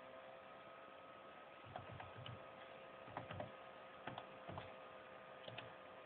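Faint clicks of laptop keys being pressed in short runs, typing a boot password, over a faint steady electronic hum with a few held tones.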